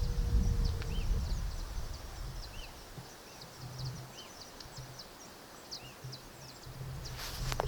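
Outdoor ambience: a bird repeats a short, arching chirp about every second and a half over faint, high, ticking chirps. A low rumble fills the first couple of seconds, and a sharp click comes near the end.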